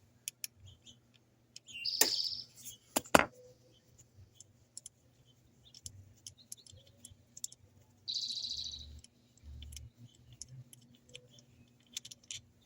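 Scattered light metallic clicks from bolts and tools being handled, with two sharper knocks about three seconds in. A bird chirps briefly twice, about two seconds and eight seconds in.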